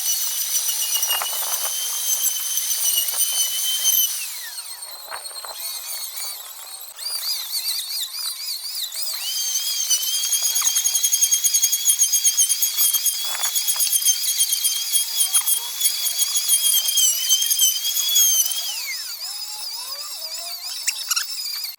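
High-pitched whine of a woodworking power tool motor running at speed. It eases off about four seconds in, runs again, and winds down near the end.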